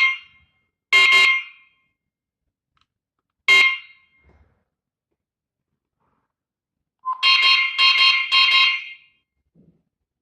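Wireless strobe siren of a BIBENE W20 alarm system giving short, loud electronic chirps as the alarm panel sends it signals. There are three single chirps, then a quick run of four about seven seconds in.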